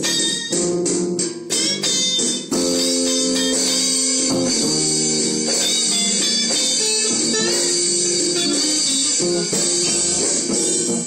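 Electric guitars jamming a blues, with short choppy strokes for the first couple of seconds, then running into steady sustained notes.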